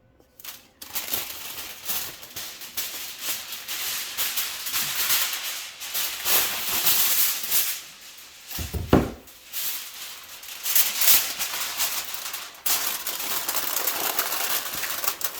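Aluminum foil being crinkled and pressed into place, a continuous crackling rustle with a dull thump about nine seconds in.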